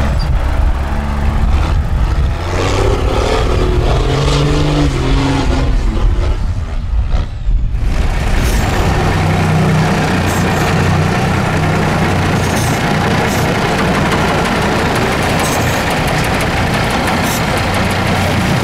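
Diesel engines of Unimog trial trucks working under load on a steep off-road slope, the revs rising and falling. After a cut about eight seconds in, a second truck's engine runs on steadily with a few sharp clicks over it.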